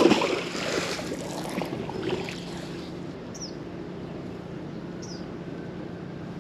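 Heavy magnet-fishing magnet splashing into river water at the end of a throw, the splash dying away over about two seconds, over a steady low hum.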